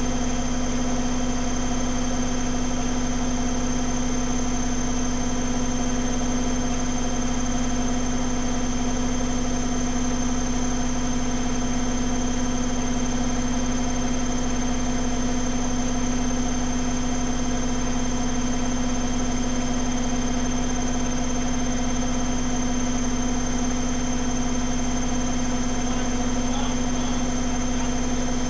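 Zanussi ZWG7160P washing machine on its spin cycle, holding at about 1000 rpm because the load is unbalanced and it won't ramp up to its full 1600 rpm spin. The motor and drum give a steady hum with a strong even tone and no crackling.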